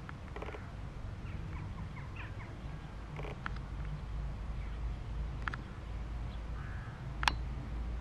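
Outdoor ambience: birds calling now and then over a steady low rumble, with one sharp click a little over seven seconds in.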